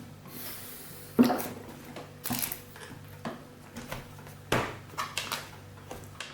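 Small Phillips screwdriver and small screws being worked out of a laptop's plastic bottom cover: about six separate sharp clicks and taps, the loudest about a second in, over a faint steady hum.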